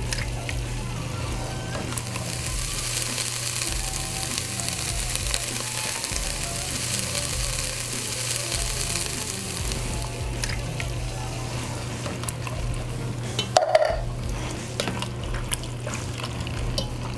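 Ground turkey and diced tomatoes sizzling in a hot cast iron pot while a spatula stirs and scrapes through the chili, with small clicks of the spatula against the pot and one louder knock about three-quarters of the way through.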